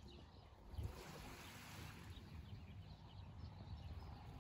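Faint seashore ambience at a very calm sea: a low, even hiss with small scattered chirps of distant birds.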